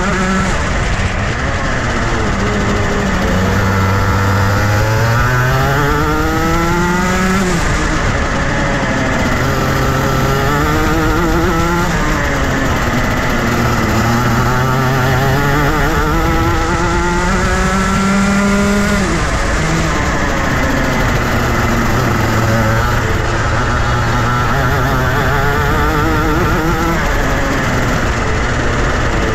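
Two-stroke 125cc Rotax Max Junior kart engine at racing speed, its revs climbing in long rising sweeps and dropping sharply off the throttle several times, over steady wind and track noise.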